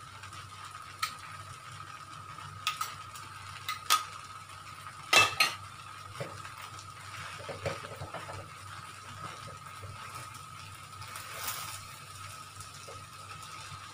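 Wooden spatula stirring rice vermicelli in a wok, with scraping and a few sharp knocks against the pan, the loudest a double knock about five seconds in. Under it runs a faint steady sizzle and a thin steady tone.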